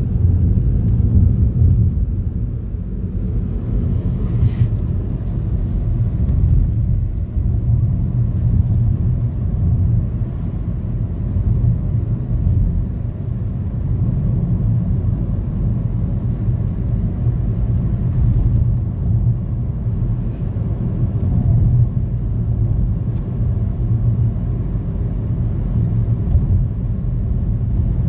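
Car driving along a road, heard from inside the cabin: a steady low rumble of road and engine noise.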